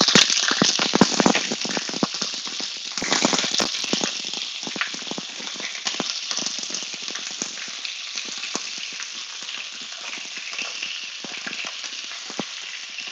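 Pieces of Arctic char sizzling and crackling in hot oil in a pan as they are laid in one after another. The sizzle flares up again about three seconds in, then slowly settles to a steadier frying hiss.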